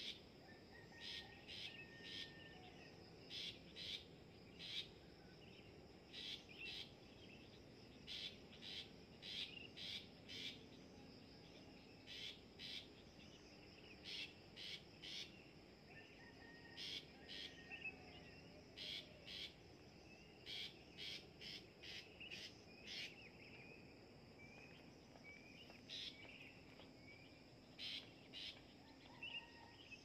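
Long-tailed shrike calling with short, sharp notes in irregular bursts of a few at a time, over a faint steady insect hum.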